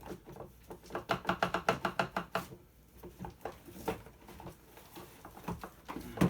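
Hard plastic parts of a ride-on toy knocking and clicking as they are pulled and worked apart by hand: a quick run of clicks about a second in, then scattered knocks and one sharp knock near the end.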